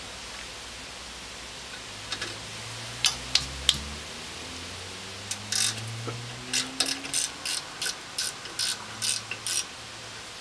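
Socket ratchet clicking as brake caliper bolts on a Ford F150's rear axle are loosened and spun out. A few scattered clicks, then a regular run of about three clicks a second near the end.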